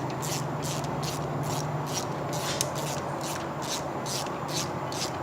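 Ratchet wrench clicking in quick even strokes, about three a second, as a spark plug is screwed back into its cylinder, over a steady low hum.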